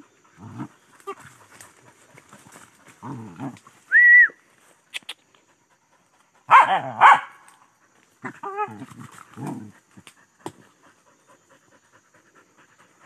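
Hunting dogs at a downed wild boar, barking and whining in short scattered bursts. The two loudest barks come close together a little past halfway, after a brief high-pitched yelp about four seconds in.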